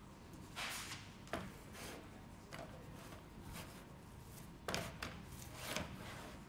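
Paint roller being loaded in a paint tray: a few short scraping and knocking noises, the loudest about two thirds of the way through.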